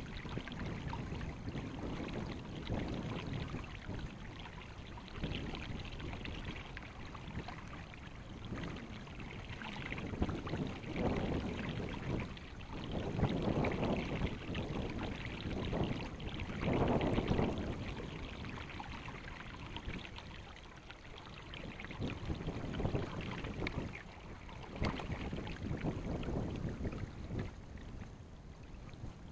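River water sloshing and swishing, swelling and fading every second or few seconds.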